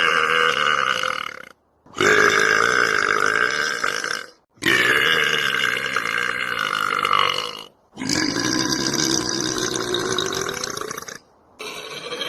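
A man belching: five long, drawn-out belches one after another, each lasting two to three seconds, with short breaks between them.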